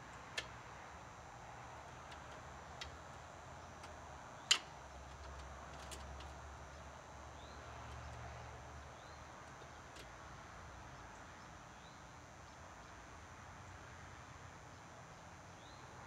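Scattered sharp clicks and taps of tools and parts being handled on an outdoor air-conditioner unit under service, the loudest about four and a half seconds in, over a faint steady hiss with occasional faint bird chirps.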